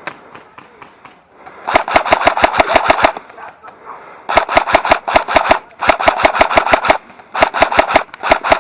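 Airsoft electric rifle firing on full auto in several bursts of about a second each, a rapid string of sharp clacks with short pauses between bursts.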